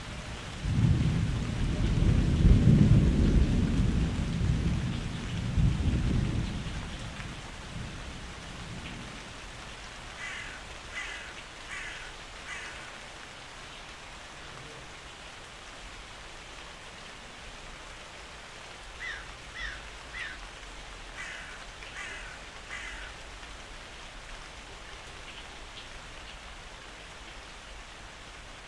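Steady rain falling, with a long roll of thunder in the first few seconds. Later come two clusters of short, high calls.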